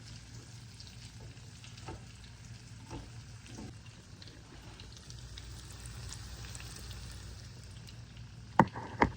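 Breaded vegetable slices frying in oil in a pan: a steady sizzle with small crackles. Near the end come two sharp knocks, the loudest sounds here, about half a second apart.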